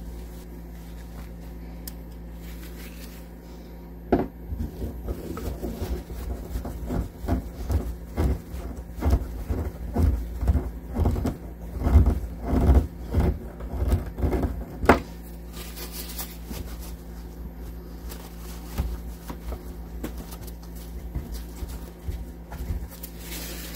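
Screwdriver driving a screw into the soft wood of an RV cabinet door to fit a hinge: a run of irregular knocks and scrapes starting about four seconds in and stopping about eleven seconds later, over a steady low hum.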